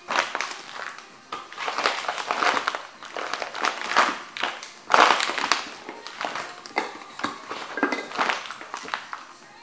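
Rubber boots stomping on a broken wooden painting frame and its canvas: repeated crunching and cracking of splintered wood and crinkling of crumpled canvas, loudest about halfway through.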